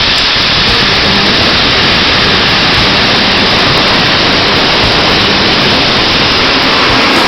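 Class 37 diesel locomotive 37905 running with its engine close by: a loud, steady, hissing noise with a faint low hum underneath, unchanging throughout.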